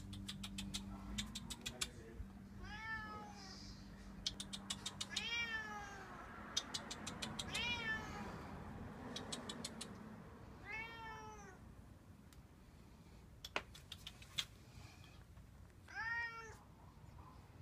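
A hungry cat meowing five times, each meow rising and then falling in pitch. Quick bursts of sharp clicking come in the gaps between the meows.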